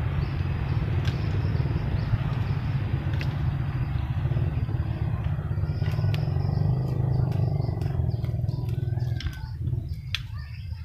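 A motor engine running steadily, dying away about nine seconds in. Birds chirp near the end.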